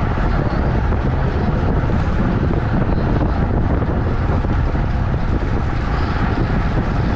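Steady, loud wind rush buffeting a GoPro's microphone on a bicycle moving at racing speed.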